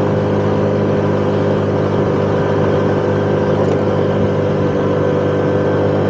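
Honda Click 125 scooter's single-cylinder engine running at a steady cruising speed, a constant even hum with no change in pitch, over a steady rush of wind and road noise.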